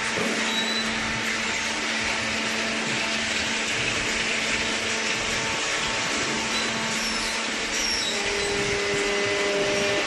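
Horizontal hydraulic carton baler running in a baling plant: a loud, steady machine noise with a low hum underneath, unchanging throughout.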